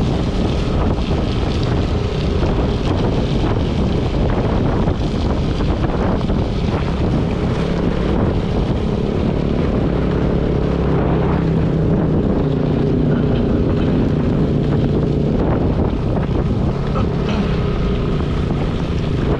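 Moving Yamaha scooter ridden over a wet, rough gravel road: wind buffeting the microphone over the engine running and the tyres rattling on loose stones, with irregular knocks from bumps. The engine hum comes through more clearly in the second half.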